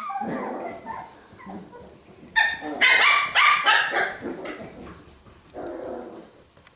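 Four-week-old cockapoo puppies yapping: a quick run of short, high-pitched yips and barks in the middle, then a softer, lower whimper near the end. These are very young puppies just learning to bark.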